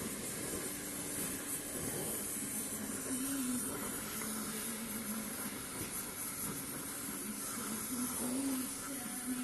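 Gas torch flame burning with a steady hiss and a faint wavering hum, heating silver in a melting dish until it goes liquid.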